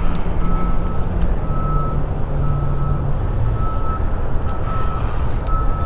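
A vehicle's reversing alarm beeping steadily, about one half-second beep each second, over a steady low rumble of traffic.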